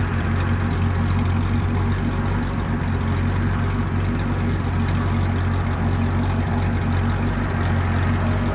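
Steady motor-vehicle engine and road noise, a constant low hum.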